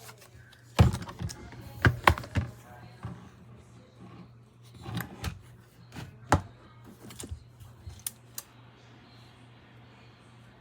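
Irregular clicks and knocks of something hard being handled, the loudest about a second in and around two seconds, over a faint low steady hum.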